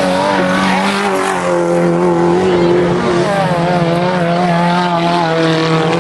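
Several small race cars on a dirt track, their engines running at high revs. Overlapping engine notes rise and fall as the cars accelerate and lift through the bend.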